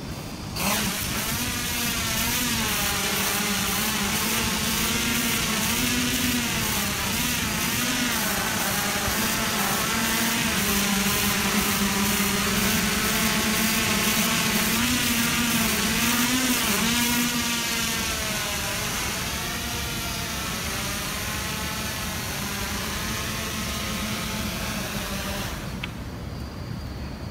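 Hexacopter drone's six propellers and motors whirring as it takes off and flies, the pitch wavering up and down as the rotors speed up and slow to steer. The sound grows a little quieter and thinner near the end as the drone comes down onto the landing pad.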